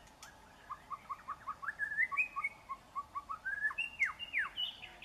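White-rumped shama (Murai Batu Medan) singing. A quick run of short rising whistled notes, about four a second, builds into higher clear slurs, with two steep falling whistles about four seconds in.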